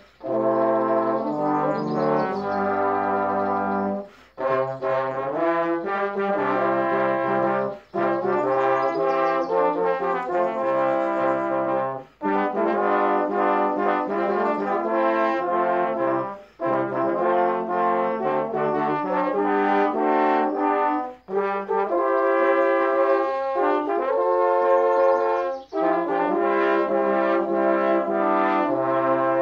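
Four trombones playing a slow chordal piece in four parts, with held chords and the lowest part deep in the bass. The music moves in phrases of about four seconds, each broken off by a short breath.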